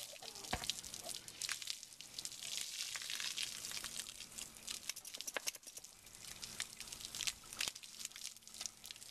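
Water from a garden hose spraying onto a horse's legs and splashing on wet concrete: a steady crackling hiss with fine patter.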